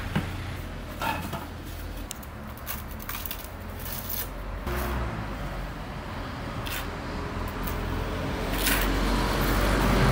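Low, steady rumble of road traffic that swells near the end, with a few short scrapes and knocks of a steel trowel working cement mortar.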